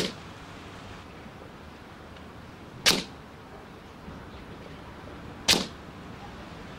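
Air Arms S400 pre-charged pneumatic air rifle firing three single shots about two and a half to three seconds apart: one at the start, one about three seconds in and one about five and a half seconds in, each a sharp crack with a short tail.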